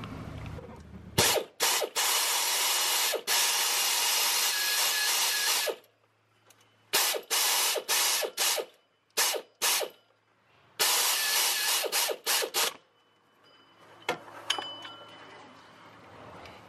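A ratchet wrench clicking in quick runs as a fastener is run in to fit a pulley, a long run of about four seconds, then several short bursts and another run of about two seconds, and after that a few quieter clicks.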